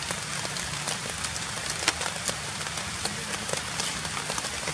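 Steady rain pattering on forest leaves, with scattered sharp drips, one louder drip a little under two seconds in.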